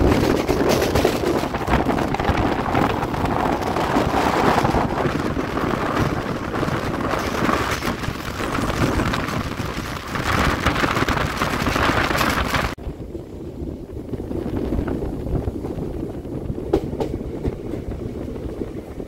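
Passenger train running at speed, heard from on board: a loud, steady rumble and rush of wheels on rails. About 13 seconds in it changes abruptly to a quieter, duller rumble.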